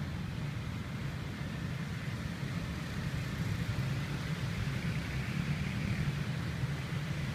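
Steady low rumble of city traffic with a faint even hiss above it.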